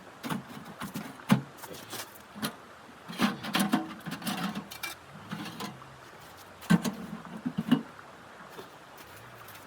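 A series of irregular knocks and clunks, the sharpest about a second in and a cluster near the end, with duller thuds between.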